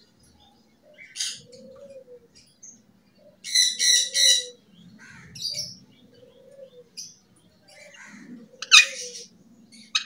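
Alexandrine parakeet giving short high calls in bursts: one about a second in, a run of three at about three and a half to four and a half seconds, and the loudest near the end. A softer, lower call repeats every couple of seconds behind them.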